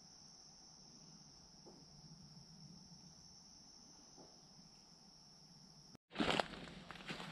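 A steady, faint chorus of summer insects, one unbroken high-pitched buzz. About six seconds in it cuts off abruptly and louder footsteps through leaf litter and brush begin.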